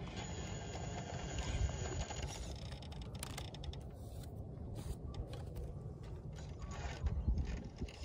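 Radio-controlled rock crawler driving over rock: its motor and gears whirring, with scattered clicks and scrapes, most between about three and five seconds in.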